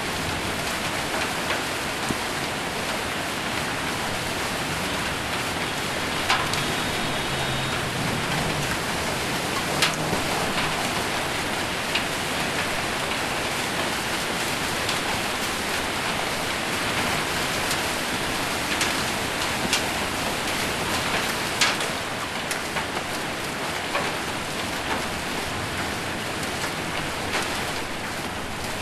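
Heavy rain and hail drumming steadily on a roof, with a few sharper single hits standing out now and then.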